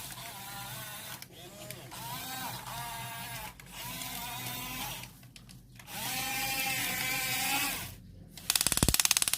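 Small electric gear motors of a toy RC excavator whining in short runs of about a second each, the pitch rising as each run starts and falling as it stops. Near the end comes a loud, rapid rattling buzz lasting under a second.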